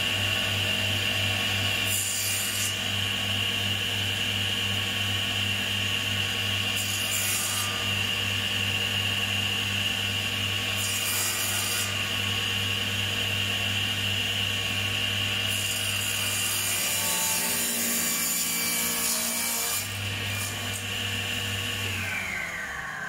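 Table saw running with its blade tilted to 9 degrees, bevel-cutting the edges of a narrow piece of timber on a crosscut sled: a steady motor hum and whine, with four bursts of blade cutting through wood, the last the longest. Near the end the saw is switched off and its whine falls in pitch as the blade spins down.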